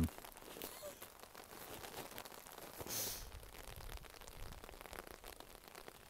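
Light rain pattering on a tarp overhead: faint, scattered ticks, with a brief hiss about three seconds in.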